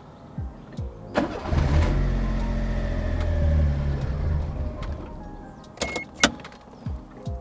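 The Daihatsu Mira's swapped-in turbo engine starting about a second in, running for about three seconds and then dying away: the engine fires but won't keep running. A few sharp clicks follow near the end.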